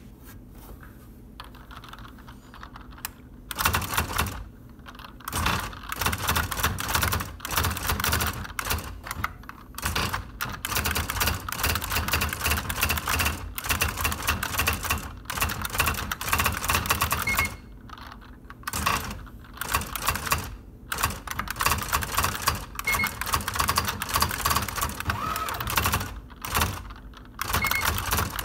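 IBM Wheelwriter 10 Series II electronic typewriter being typed on. Its daisywheel print mechanism clatters out characters in quick runs of strikes, starting about three and a half seconds in, with a few short pauses.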